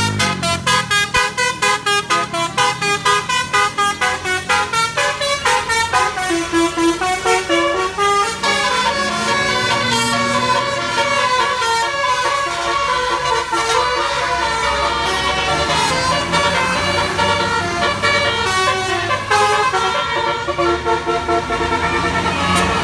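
Bus telolet horn, a multi-tone Basuri air horn, playing a melody: rapid stuttering notes for the first several seconds, then longer held chords changing pitch.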